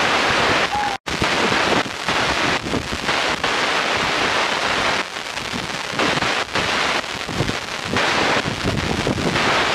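Wind buffeting the microphone in uneven gusts, with a brief drop-out about a second in.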